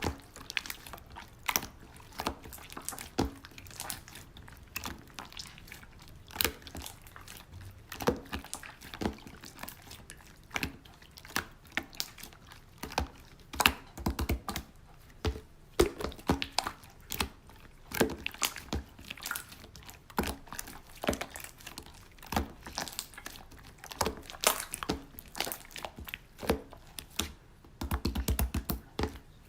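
Slime being squeezed and worked by hand, making irregular sticky clicks and pops, several a second, with a few denser squelchy bursts.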